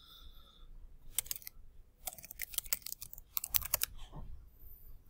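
Typing on a computer keyboard: a short burst of keystrokes about a second in, then a longer run of rapid keys from about two to four seconds in.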